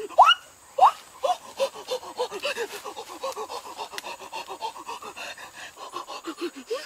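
A boy panting and gasping in short, rapid breaths, about three or four a second, with two sharp rising gasps near the start, in distress as if choking.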